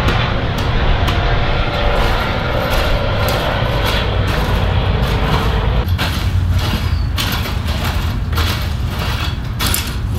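Garden rake scraping and dragging through loose, clumpy dug soil, with a run of short scraping strokes from about six seconds in, over a steady low engine-like rumble.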